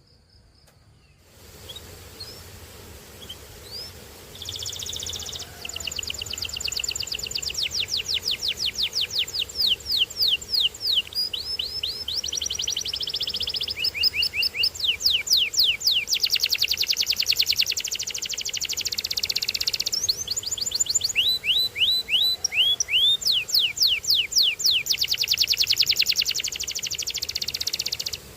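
Canary singing a long song of rapid trills: fast runs of repeated, high sweeping notes that switch to a new phrase every second or two. The song starts a few seconds in after a brief quiet gap.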